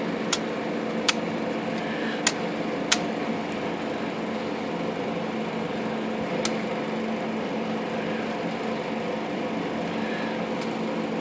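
Steady workshop hum like a fan or air conditioner, with a low steady tone, and a few light, sharp clicks from handling the typewriter on the bench: four in the first three seconds and one more about six and a half seconds in.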